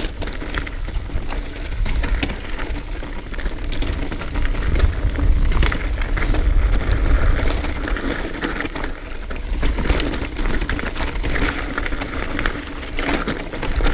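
Trek Remedy 9.7 full-suspension mountain bike riding down a rough dirt trail: tyres rolling over dirt and stones with irregular clicks and clatters from the bike over bumps. Wind rumbles on the action camera's microphone throughout, heaviest in the middle.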